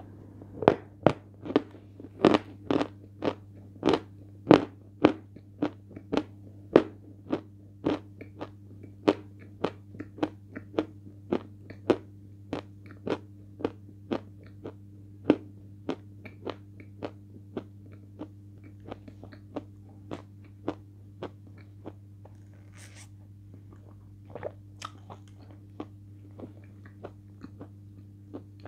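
Close-up chewing of a damp piece of Peschanka edible chalk: crisp crunches about twice a second, loud at first and growing softer and sparser as the chalk is ground down.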